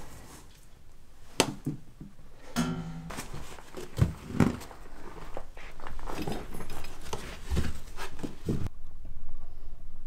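Scattered knocks and scuffs of a person climbing down through a hatch in wooden floorboards into a crawl space, with body and boots bumping the boards.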